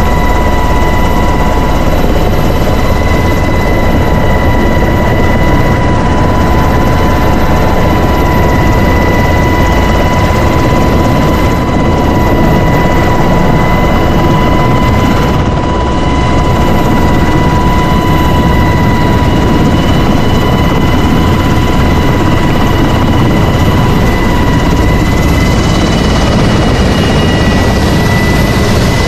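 Military helicopter heard from inside its cabin with the side door open: loud, steady rotor and engine noise with a constant high whine.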